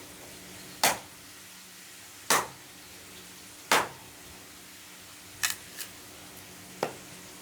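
Sharp workshop knocks, one about every second and a half, with a lighter knock close after the fourth and a weaker one near the end, over a faint steady hum.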